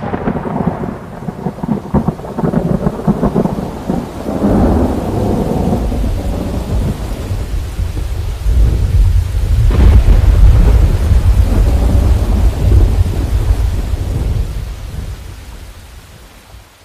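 Thunderstorm: low rolling thunder over a steady hiss of rain, with a sharp thunderclap about ten seconds in, fading out near the end.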